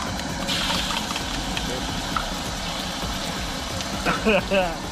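Beaten eggs sizzling in hot oil in a wok, a steady hiss that gets louder about half a second in as the egg spreads in the oil.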